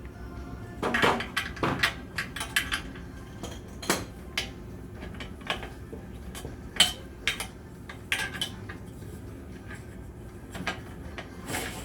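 Aluminum frame parts being handled during disassembly: irregular sharp metallic clinks and knocks, a dozen or so scattered through.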